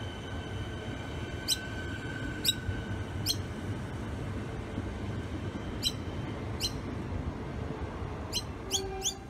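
Siemens Nexas three-car electric train pulling out of the platform: a steady low rumble, with a steady high whine for the first few seconds. Short, sharp high chirps cut through it every second or so, bunching up near the end.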